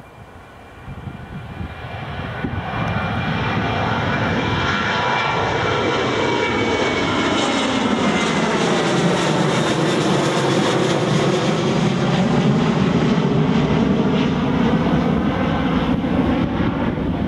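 The Boeing 737's twin CFM56-7B turbofan engines at takeoff power as the jet climbs out overhead. The jet noise builds over the first few seconds, then holds loud and steady, while a high engine whine slides slowly down in pitch as the aircraft passes over and moves away.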